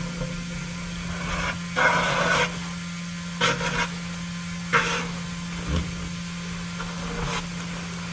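Steady drone of a septic pump truck's vacuum pump sucking out a septic tank through its hose, with several short, loud bursts of noise over it.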